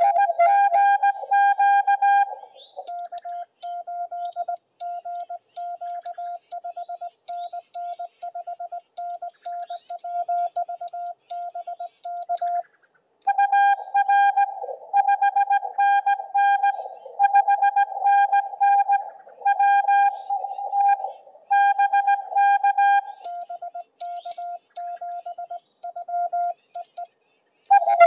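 Morse code (CW) on a Yaesu FTDX10 HF transceiver: a louder, buzzy paddle-keyed sidetone sends quick runs of dits and dahs, then gives way twice to a quieter, slightly lower-pitched Morse signal answering from another station.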